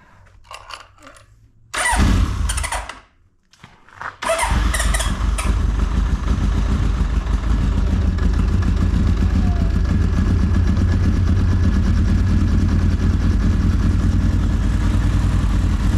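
1981 Honda CB900's air-cooled inline-four engine being started: a first attempt about two seconds in fires only briefly and dies, then a second attempt a couple of seconds later catches and the engine settles into a steady idle.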